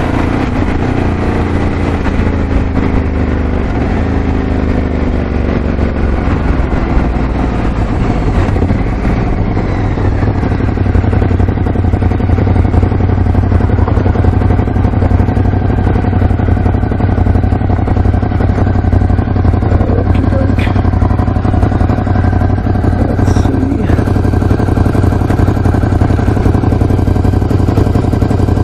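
Ducati Scrambler 1100's air-cooled L-twin engine slowing from highway speed in sixth gear, its pitch falling over the first ten seconds or so, then running steadily at low revs as the bike comes to a stop.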